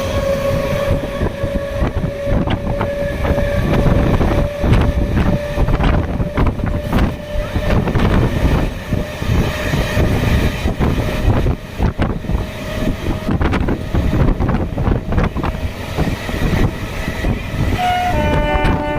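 Train running on the rails: a steady rumble full of short knocks from the wheels over the track. A steady tone fades out over the first two-thirds, and the train horn sounds briefly near the end.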